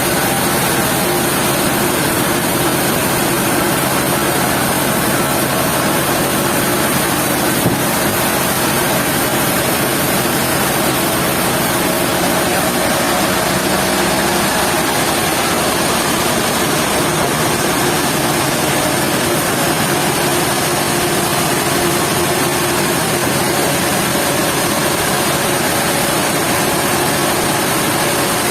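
Sawmill saw running steadily: a continuous mechanical hum with a few faint held tones, unchanging throughout.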